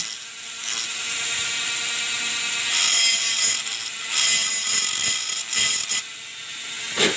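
A metal tool tip scraping along the edge of a line hole in a black plastic trimmer head, in several short back-and-forth spells. It is grinding down the sharp edge that keeps cutting the nylon trimmer line.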